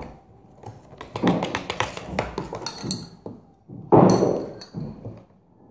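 A spoon clicking and tapping against a plastic tub in a quick run of sharp ticks while slime is stirred, with one louder knock about four seconds in.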